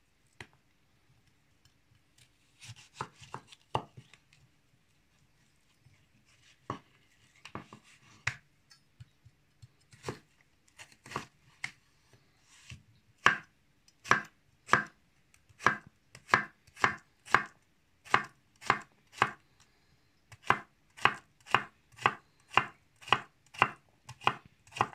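Kitchen knife cutting a peeled cucumber on a wooden cutting board. A few scattered cuts come first, then from about halfway in a steady run of about two chops a second as the cucumber is diced.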